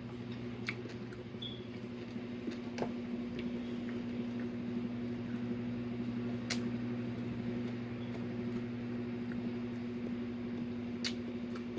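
Quiet eating sounds, small chewing and mouth clicks now and then, over a steady low electrical hum.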